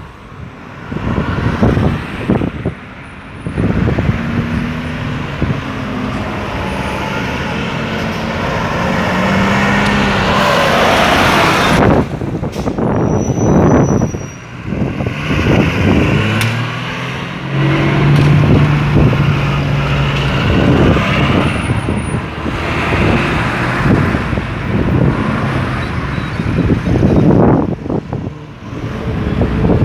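Road traffic: cars and trucks driving past, engines running and tyres on the road, the noise swelling and dropping as vehicles come and go.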